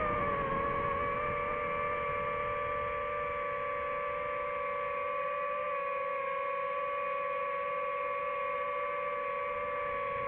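DJI FPV drone's motors and propellers whining at a steady, even pitch as it holds position in the air.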